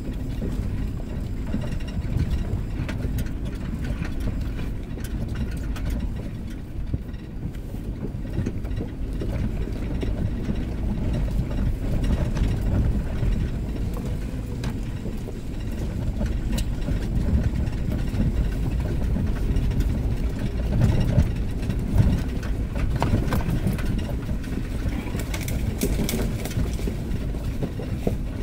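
A Toyota 4Runner's engine and drivetrain heard from inside the cabin while crawling slowly over a rough dirt trail: a steady low rumble, with a few knocks over the bumps in the second half.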